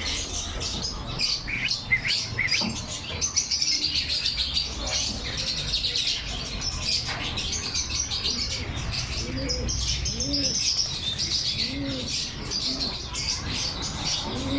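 Many small caged birds chirping at once, a dense, continuous twittering. A few lower, arching calls join in during the second half, over a steady low background rumble.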